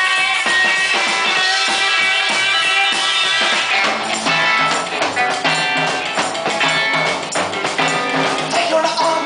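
Rock band playing guitars and drums, with a regular low beat coming in about four seconds in.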